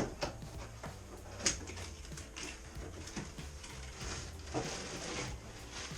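Parts of a bike repair stand being handled while unpacked from its box: scattered knocks and clicks, a sharper click about a second and a half in, and a stretch of rustling near the end.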